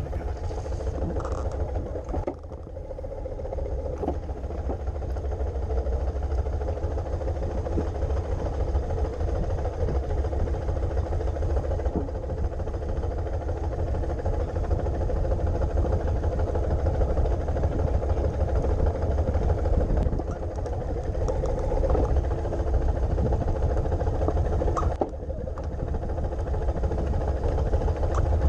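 Kawasaki Vulcan 1500 Nomad's V-twin engine running as the motorcycle rolls slowly, heard close from the bike, with a brief dip in level about two seconds in and again near the end.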